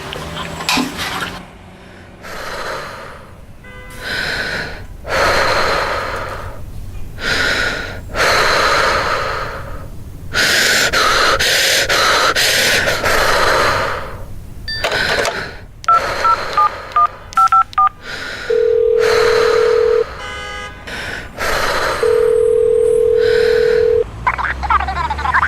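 A woman's heavy, gasping breaths in pain from labour contractions, then a run of short telephone keypad tones as a number is dialled, followed by two long ringback tones about two seconds apart while the call rings out.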